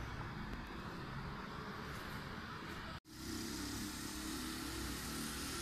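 Street traffic noise, a steady hum of cars. It cuts off abruptly about three seconds in and comes back straight after.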